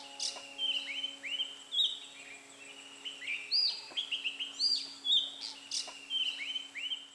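Birds chirping and calling, many short rising and falling chirps overlapping, with a faint low steady tone underneath.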